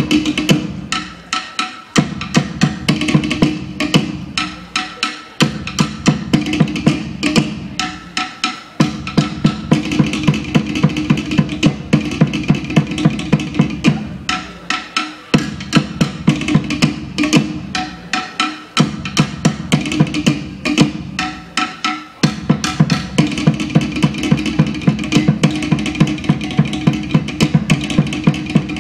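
Tahitian drum ensemble playing fast, driving rhythms of sharp wooden strikes on tōʻere slit-log drums over deeper drum beats. The playing comes in phrases broken by brief pauses every few seconds.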